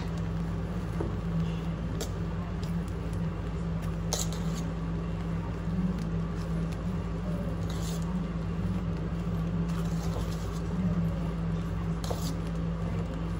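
Cooked rice being stirred in an aluminium pot, with short scrapes and rustles now and then over a steady low hum.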